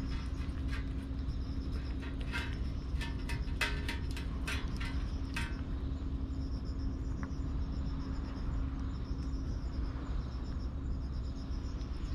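Insects chirping in a fast pulsing pattern over a steady low hum, with a run of sharp irregular clicks in the first half.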